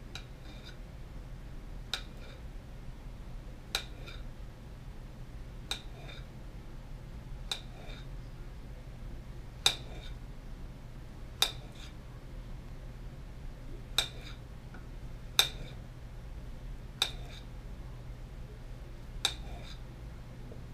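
Kitchen knife slicing a ripe banana on a ceramic plate, the blade clicking sharply against the plate with each cut, about one every two seconds. A steady low hum runs underneath.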